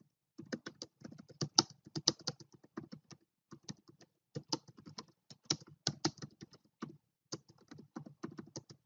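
Typing on a computer keyboard: a quick, irregular run of keystrokes with a short pause about three seconds in.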